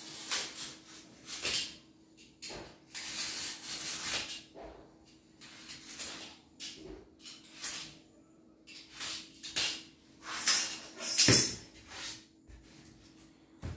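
Cardboard and plastic wrap being handled while a box is packed: irregular rustling and scraping strokes, with a louder thump near the end.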